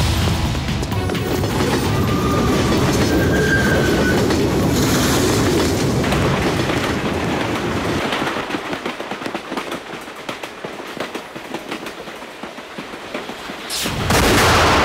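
A train running on the rails, a heavy rumble with wheel clatter, fading about eight seconds in. A sudden loud hit comes near the end.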